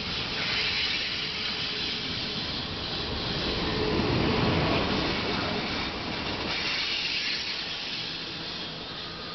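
Passenger cars of a steam-hauled excursion train rolling past slowly, their steel wheels running on the rails with a steady rumble and rattle. A little louder about halfway through, easing off toward the end.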